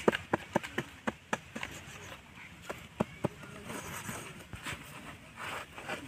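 A small axe chopping into dry, stony soil in quick, sharp strikes, several a second at first and then more spaced out. Near the end comes a short scrape of loose earth being scooped out by hand.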